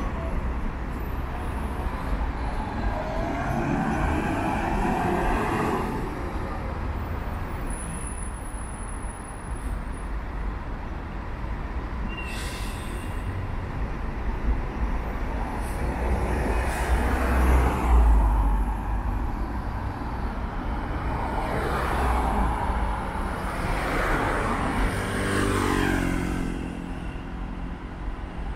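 City road traffic: cars and buses passing one after another over a steady low rumble, each pass swelling and fading, the loudest about two-thirds of the way through.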